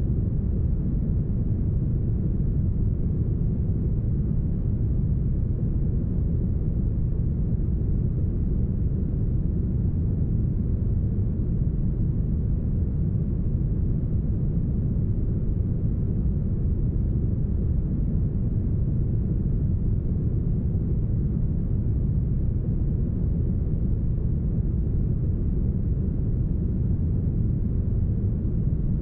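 Deep, smoothed brown noise: a steady, even noise weighted heavily to the low end, with no hiss in the highs and no change in level.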